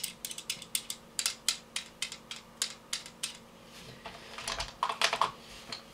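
A quick series of sharp clicks, about three to four a second, with a denser cluster of clicks and rattles about four to five seconds in: the handling clicks of an optic being fitted onto an airsoft rifle's accessory rail.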